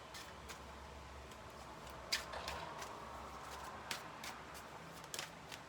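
Tarot cards being handled as a card is drawn from the deck: a few sharp card clicks and flicks at irregular intervals, two of them close together about four seconds in and again about five seconds in.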